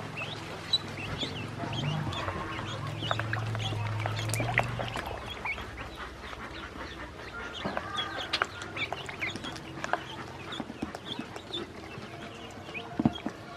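Many ducklings peeping, a steady stream of short high calls, with scattered sharp clicks. A low steady drone underneath fades out about five seconds in.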